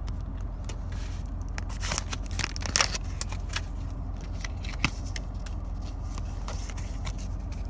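Crinkly foil booster-pack wrapper and trading cards being handled: a run of irregular crackles and snaps, busiest around two to three seconds in, over a steady low hum.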